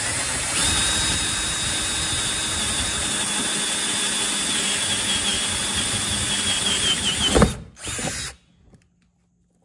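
Cordless drill running steadily with an inch-and-an-eighth spade bit boring through the plastic wall of a hard case, a high whine holding steady and then wavering. A sharp knock comes about seven and a half seconds in, and the drill stops soon after.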